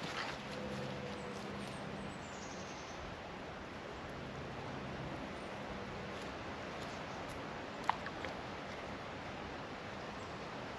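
Steady outdoor ambience, an even hiss, with a faint high descending bird call about two seconds in and one sharp click about eight seconds in.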